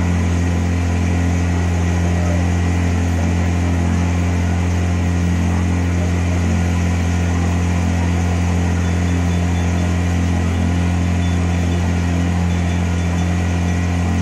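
Motorboat engine running steadily: a loud, constant low drone that holds one pitch.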